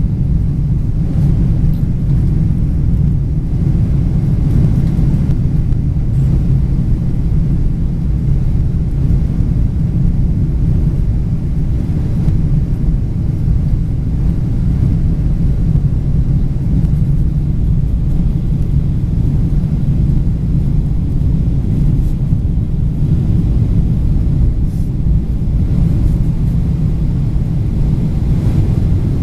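Airliner cabin noise: a loud, steady low rumble of jet engines and airflow heard from inside the passenger cabin.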